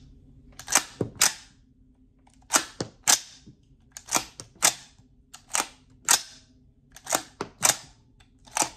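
.350 Legend AR-15 rifle being cycled by hand: the charging handle is pulled back and the bolt carrier slams forward. Each cycle gives a pair of sharp metallic clacks about half a second apart, repeated about six times, as rounds are chambered and ejected to test how the rifle feeds from the magazine.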